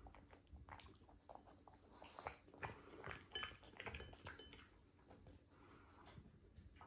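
Chopsticks clicking and tapping against a ceramic bowl as they pick up broccoli, one tap ringing out about three seconds in, with a French bulldog's faint eating noises.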